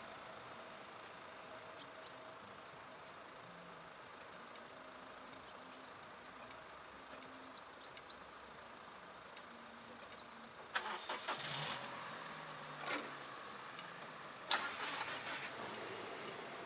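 Two car engines starting, one about 11 seconds in and another about three and a half seconds later, the first settling into an idle.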